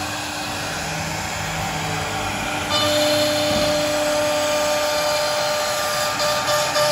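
CNC router spindle running as its bit carves grooves into a wooden door panel: a steady whine with cutting noise, growing louder about three seconds in.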